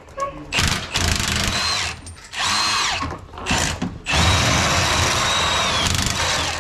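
Cordless impact wrench hammering on a truck frame bolt in three bursts, the last and longest about two and a half seconds, its motor whine rising as each burst starts and falling as it lets off.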